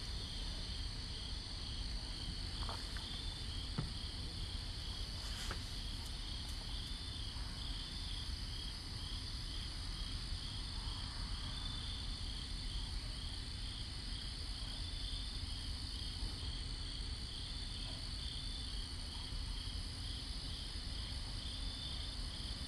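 Crickets chirping steadily at night: a high chorus with regular, evenly repeating pulses over a constant trill, above a low background rumble.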